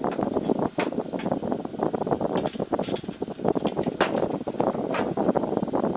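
Irregular clicks and taps of a solar street light's LED panel and aluminium housing being handled and fitted together, over a steady rushing background noise.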